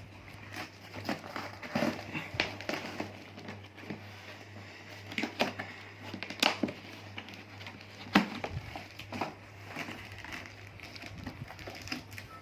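A cardboard box and its packaging being cut and opened by hand: crinkling with irregular clicks and taps.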